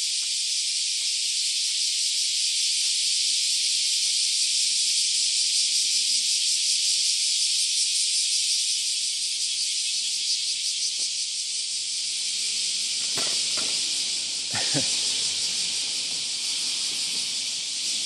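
Dense chorus of many cicadas singing at once: a loud, steady, high-pitched shrill hiss with a fine rapid pulse running through it.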